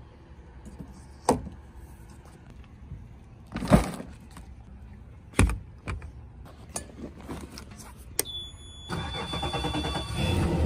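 Several separate knocks and clatters of gear being handled on a boat. Then the ignition key is turned: a steady high warning beep sounds for about two seconds, and the outboard engine cranks and starts, its rumble growing louder toward the end.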